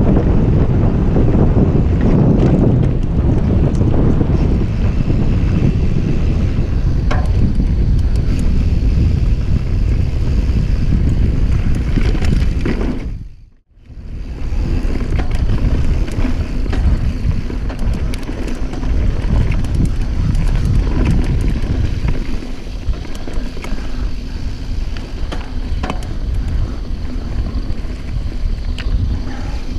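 Wind buffeting the microphone over the noise of a Norco mountain bike's tyres running down a dirt trail, with scattered sharp rattles and clicks from the bike. The sound fades out and back in about halfway through.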